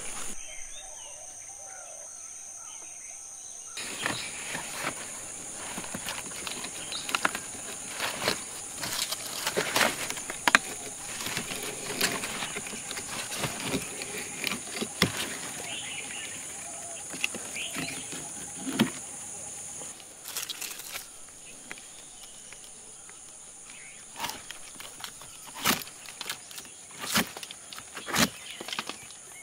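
Steady high-pitched insect buzzing, with scattered knocks, clicks and rustles from hands and a tool working on a kithul palm's bound flower stalk and its hanging clay sap pot.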